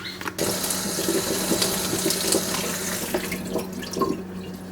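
Kitchen tap running into a sink, water splashing for about three seconds before tapering off, with a few light knocks near the end.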